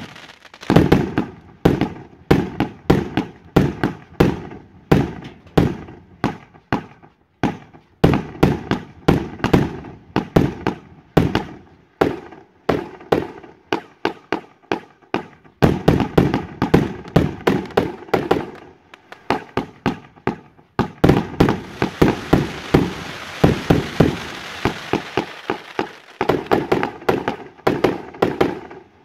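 Fireworks display: rapid volleys of shots firing and small aerial bursts popping, several bangs a second, with a brief lull about two-thirds of the way through.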